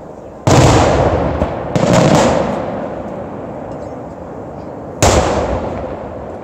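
Aerial firework shells bursting: three loud booms, about half a second in, just under two seconds in and about five seconds in, each trailing off in a long rumbling echo.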